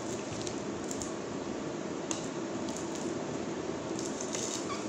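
Light rustling and crinkling of a plastic straw wrapper being worked open, with a few small crackles, then a sip through the straw from a soda can near the end.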